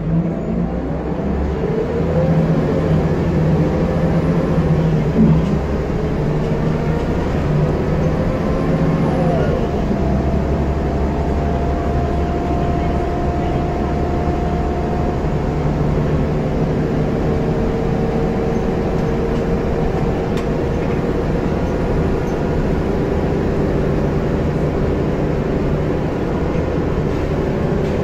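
Scania L94UB single-deck bus's 9-litre diesel engine and drivetrain heard from inside the saloon as the bus pulls away, the engine note rising and falling as it works up through the gears for about the first ten seconds, then running steadily.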